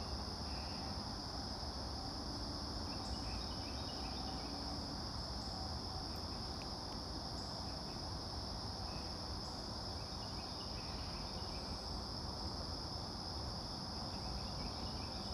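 Steady, unbroken high-pitched drone of an insect chorus, over a low background rumble.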